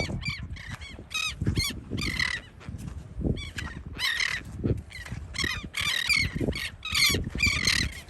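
A flock of royal terns calling over and over, many short harsh squawks overlapping in a noisy chatter. Wind rumbles on the microphone underneath.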